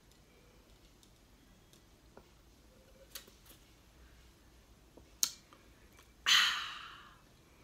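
A person's loud breathy exhale after finishing a drink, fading over about a second. A few faint clicks and one sharper click, likely lips or the glass, come before it.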